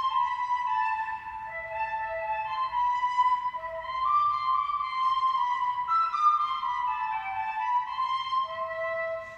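Instrumental music: a flute-like melody of held notes, with several lines sounding together.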